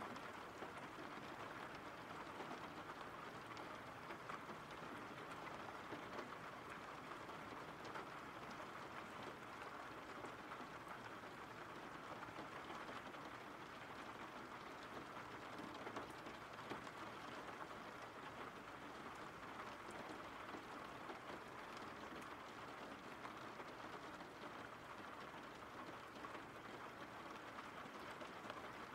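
Steady rain falling: an even, soft hiss with a few faint scattered drop taps.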